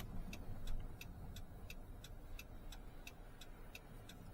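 Car turn signal ticking steadily, about three clicks a second, over the low rumble of the car in motion, heard from inside the cabin.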